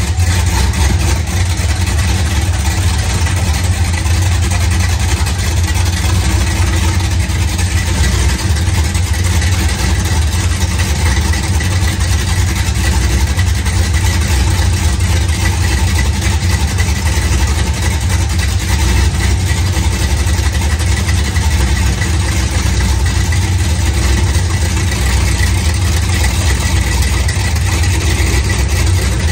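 427 LSX V8 engine idling steadily, being left to run at idle for a few minutes, its sound mostly low and even.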